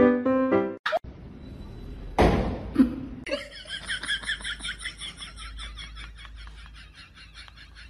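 A person laughing in a long run of quick, high-pitched giggles that slowly fade. Before it, a piano tune breaks off about a second in, and a short noisy burst comes at about two seconds.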